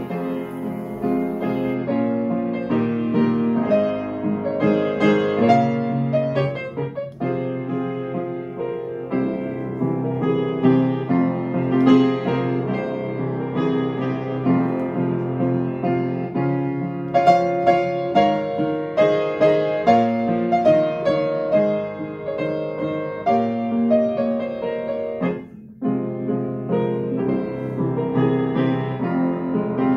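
Solo piano music on a Fazer upright piano, played with both hands: a flowing melody over chords, pausing briefly about 25 seconds in.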